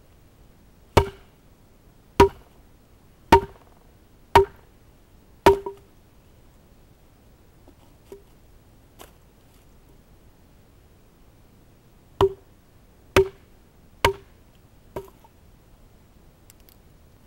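Estwing hatchet chopping and splitting a short length of wood: five sharp, ringing knocks about a second apart, a pause with two light taps, then four more knocks.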